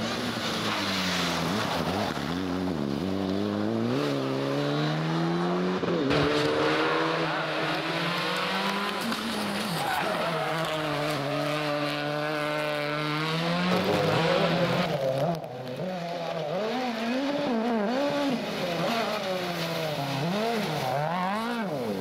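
Rally car engines at full throttle in a run of short clips, the pitch climbing and dropping again and again with gear changes and lifts. About halfway through, a Citroën Xsara WRC is held at high revs through a long slide on tarmac, with its tyres skidding.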